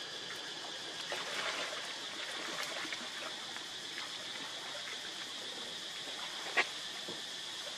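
Pond water rippling and lapping as a monkey swims through it with a baby clinging to its back. There is a steady background hiss, and a single sharp click comes about six and a half seconds in.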